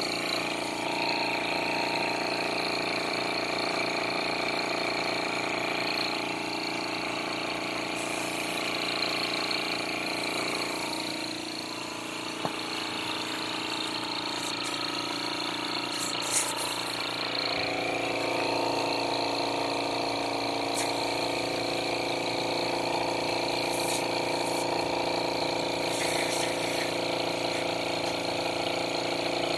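Small air compressor running steadily, a constant hum with a whine above it, as it pushes air into a hose and pressure gauge, building only about 6 psi. Its note sags briefly about twelve seconds in, and a few faint high ticks come in the second half.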